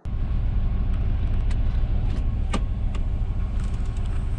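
Vehicle engine idling steadily, heard from inside the cab, with a few light clicks and a sharper tick about two and a half seconds in.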